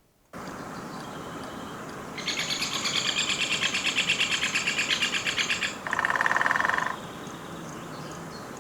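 Woodpecker in a field recording: a rapid run of repeated high notes lasting about three and a half seconds, followed by a shorter, faster, lower trill, over a steady outdoor hiss.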